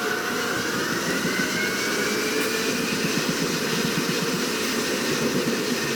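Automated airport people-mover train running between stations, heard from inside the car: a steady running noise with an electric whine that rises slowly in the first few seconds as the train picks up speed after departure.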